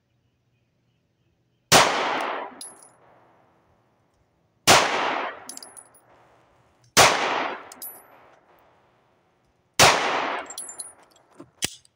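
Four shots from an HK P2000 9mm pistol, spaced about two to three seconds apart, each followed by an echo that dies away over about a second.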